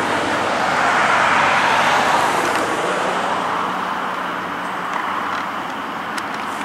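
Road traffic passing on a highway: the steady tyre and engine noise of vehicles driving by, slowly fading as they move away.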